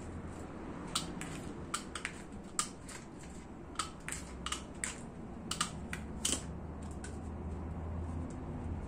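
Steel wire mesh being cut with hand snips: a run of about fifteen sharp, irregular metallic clicks over some six seconds.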